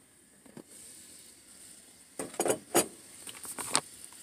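Water at a rolling boil in a saucepan on a gas burner, a soft steady hiss. Over the second half come a few sharp clicks and knocks as the glass lid is lifted off the pot.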